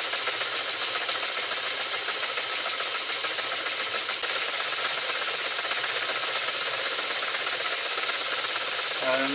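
Gauge one three-cylinder model locomotive chassis with Gresley conjugated valve gear running on compressed air: a steady hiss of exhaust with a fast, even beat and light mechanical clatter from the motion, running at about the speed its builder would want on the track.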